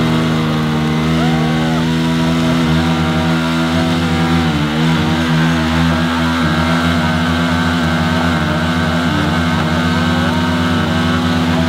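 A Bajaj Pulsar 220 and a Yamaha R15, both single-cylinder motorcycles, held at high revs under full load as they pull against each other on a rope. Their rear tyres spin in loose dirt. The combined engine note is loud and steady, wavering slightly around the middle.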